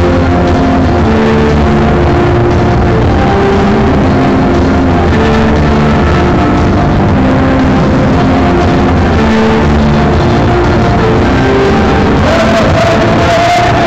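A national anthem played over a stadium's loudspeakers, a slow melody of held notes. Near the end a higher held tone comes in and slides upward.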